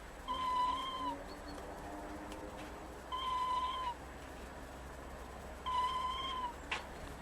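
A sleeping squirrel making a thin whistling squeak three times, evenly spaced about two and a half seconds apart. Each one is a steady tone under a second long that rises slightly and falls away. The filmer takes it for the squirrel snoring in its sleep.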